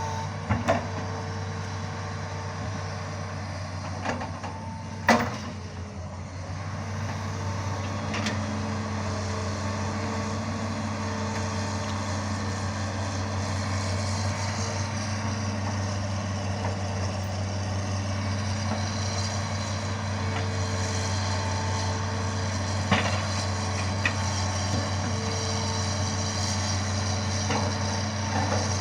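Hitachi Zaxis 210 hydraulic excavator's diesel engine running steadily under work, broken by a few sharp knocks, the loudest about five seconds in.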